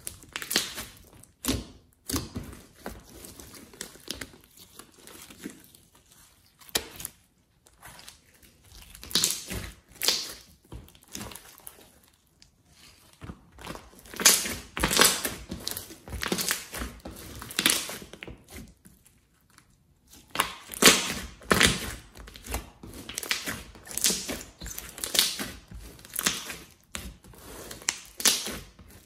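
Thick glossy slime being squeezed and kneaded by hand, with wet squelches and sharp pops as trapped air is pressed out. The sounds come in irregular bunches, with a couple of short lulls.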